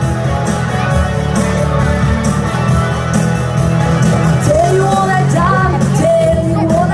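Amplified pop-rock music with a steady beat playing through stage speakers, and a woman's voice singing into a microphone, the sung melody coming in about four and a half seconds in.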